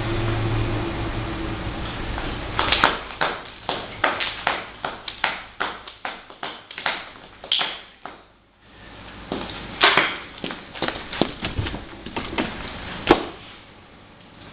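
Ballet-boot heels clicking on a granite tile floor: an uneven run of sharp taps as the wearer steps about, with a short pause about eight seconds in. A steady low hum stops about two and a half seconds in, just as the clicking starts.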